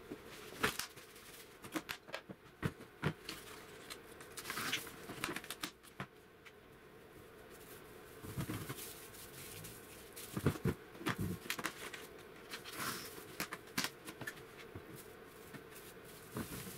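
Cling film rustling and crinkling as it is pulled from the roll and wrapped around a steel planer feed roller, with scattered light clicks and knocks as the roller is handled on the bench.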